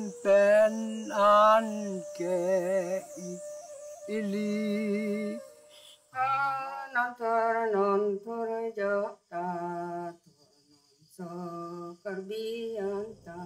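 An old person's voice singing a slow song in short phrases, its held notes wavering, with brief pauses between phrases.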